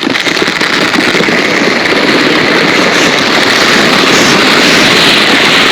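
Sled sliding over snow: a loud, steady crackling scrape.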